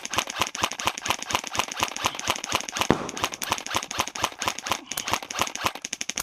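Airsoft guns firing on full auto: a fast, continuous stream of sharp clicking shots, about eight to ten a second, with one louder crack about three seconds in.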